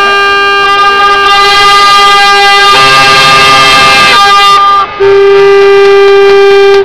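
Boat horns sounding long, steady, overlapping blasts at different pitches in salute of an arriving yacht. A second horn joins in the middle, there is a brief break about five seconds in, then one horn sounds alone, very loud, and cuts off suddenly.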